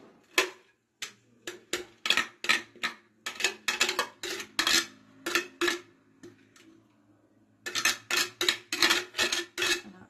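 Metal spoon knocking and scraping against a plate, pushing chopped onion and herbs off it into a clay tagine: quick sharp clinks, about two or three a second, with a short pause a little past the middle before they start again.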